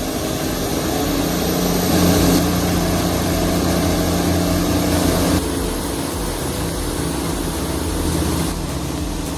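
Heavy diesel machinery engine running steadily with a low hum, its sound changing abruptly about five seconds in.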